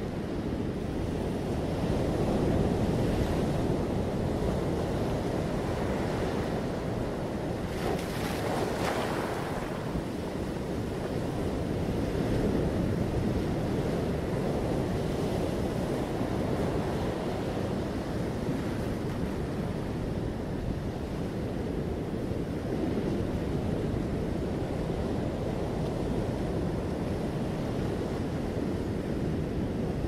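Sea surf washing in on a rocky shore in slow swells, with wind buffeting the microphone. One brighter, hissier wash comes about eight seconds in.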